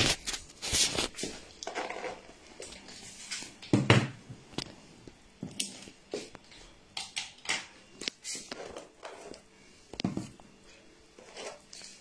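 Handling noise on a phone's microphone: scattered knocks and rustles as the phone is moved and brushed against clothing, with a louder knock about four seconds in.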